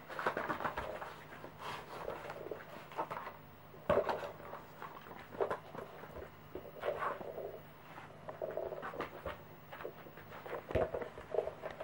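A Pembroke Welsh corgi working at its treats: irregular knocks, clatters and rustles as it noses a snack bag and bites, carries and drops a hard plastic treat toy on the floor, with paws tapping on the floor.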